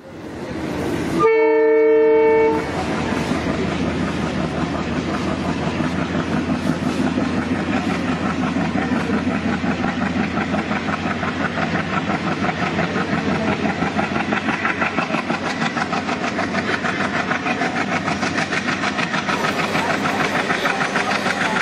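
Train horn sounds once for about a second and a half near the start, then the train running along the track with steady wheel and rail noise.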